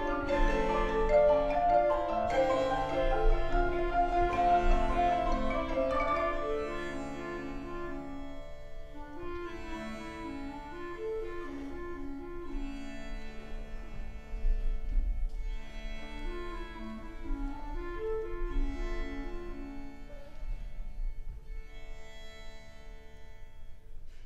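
Live contemporary chamber music: bowed strings and mallet percussion playing a repeating pattern of notes, growing softer about seven seconds in.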